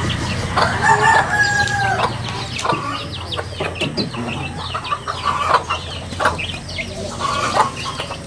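A rooster crowing once, about a second in, over the steady high peeping of chicks and the clucking of a hen; a second crow starts near the end.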